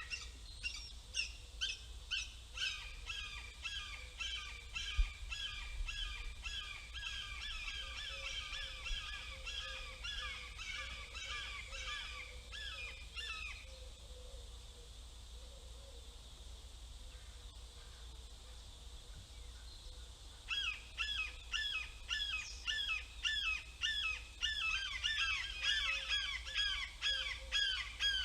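Young hawk giving long series of rapid, harsh, repeated calls, about three a second. The calling stops for several seconds around the middle and then resumes.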